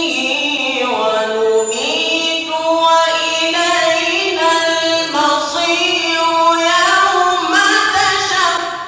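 Quran recitation (tajweed) in a single high voice, chanted in long, ornamented held notes that bend slowly in pitch, with short breaks between phrases.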